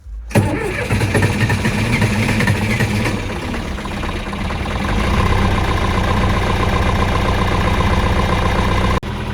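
Tractor engine starting up abruptly about half a second in, then idling steadily while still cold, not yet warmed up; it gets a little louder about five seconds in.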